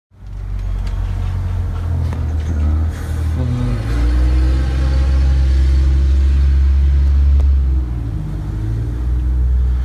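A motor vehicle's engine running with a steady low rumble, its pitch shifting a couple of times.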